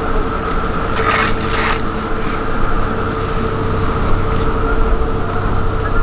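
Steel shovels scraping and scooping loose hot asphalt a few times about a second in, over the steady running of diesel road-roller engines.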